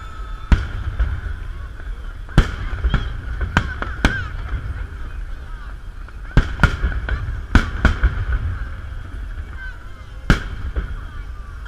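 Fireworks salute: about ten sharp bangs of shells bursting at uneven intervals, over a continuous background din and low rumble.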